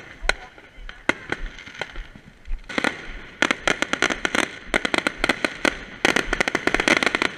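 Fireworks going off: a few separate sharp bangs, then from about three seconds in a dense, rapid crackling of many pops.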